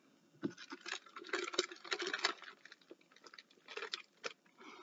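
Drinking through a straw from a clear plastic cup: faint sipping with irregular small clicks and ticks from the cup being handled.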